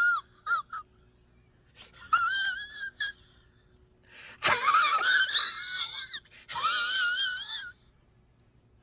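High-pitched, wavering whining cries: two brief chirps, one cry about two seconds in, then two longer warbling cries from about four and a half seconds in.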